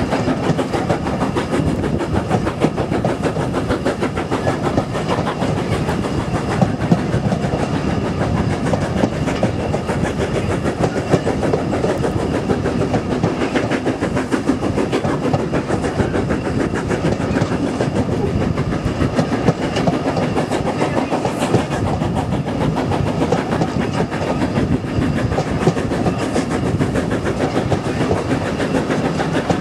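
Southern Railway S15 class 4-6-0 steam locomotive No. 825 hauling a train, heard from an open window of a coach behind it: its exhaust beats mixed with the clatter of the carriage wheels over the rails, steady and loud throughout.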